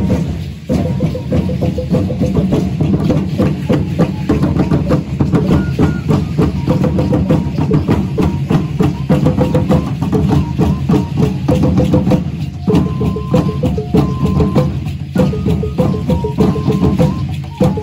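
Mexica (Aztec) ceremonial dance music: huehuetl drums and a wooden teponaztli slit drum struck with sticks keep up a fast, steady beat while a flute plays a melody that steps between a few held notes.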